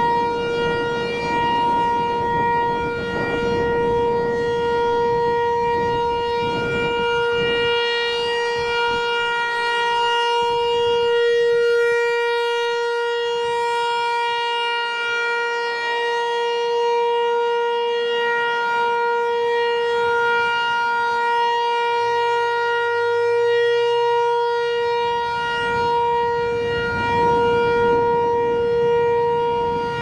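Federal Signal 508 electronic outdoor warning siren sounding a steady, unwavering tone during a siren test, its rotating speaker head making the level swell and fade slowly.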